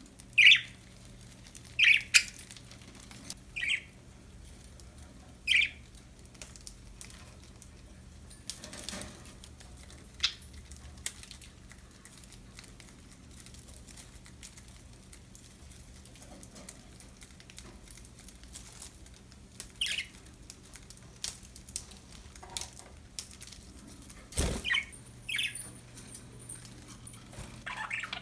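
Pet budgerigars giving short, sharp chirps, one at a time with long pauses between, over faint scratching and clicks. A single sharp knock comes about three-quarters of the way through.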